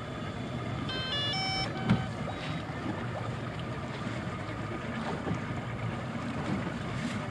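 Boat engine idling, with wind on the microphone and water slapping the hull. About a second in, a short electronic chime of several quick stepped tones, then a single thump.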